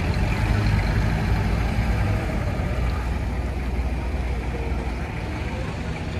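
Engine of a vintage American convertible running at low revs as the car rolls slowly away, a steady low hum that fades after about five seconds.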